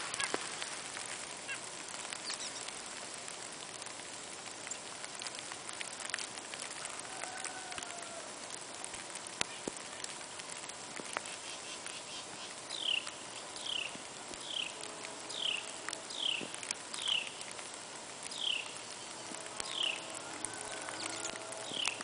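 A songbird singing a series of about ten short whistled notes, each sliding down in pitch, starting about halfway through and repeating roughly once a second, over a steady outdoor hiss.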